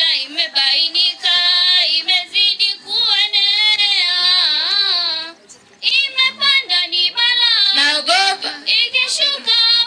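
A girl's voice chanting a Swahili poem in a sing-song, half-sung delivery into a handheld microphone, in held phrases with a short pause about halfway through.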